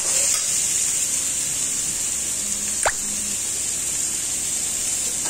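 Chopped onion and garlic sizzling in hot oil in a steel kadhai, a steady high hiss. There is a short rising squeak about three seconds in.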